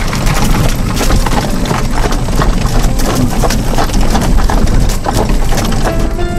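Horse-drawn Amish buggy on a gravel lane: the horse's hooves clip-clopping and the buggy's wheels rumbling and rattling over the gravel, heard from inside the buggy. Music comes in near the end.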